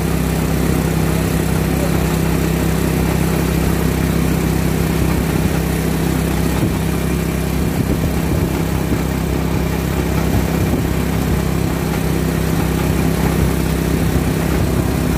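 Motor vehicle running at steady speed, heard from on board: an even engine drone with a constant low hum under road and wind noise.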